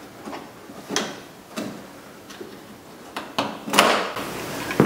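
Plastic clicks and rattles as a Ford Focus fog light's wiring connector is unclipped and the lamp is handled, with a louder rustling scrape of plastic near the end.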